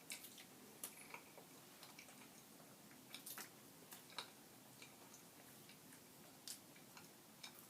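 Faint, irregular wet clicks and squelches of someone chewing a mouthful of banana in a hurry.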